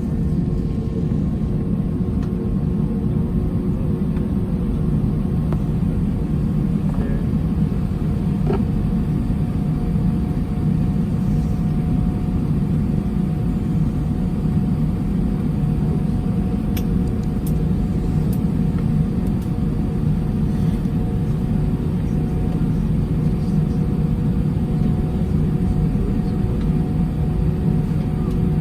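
Airbus A319 cabin noise: a steady low rumble with a constant engine hum, heard from inside the cabin, with a few faint clicks.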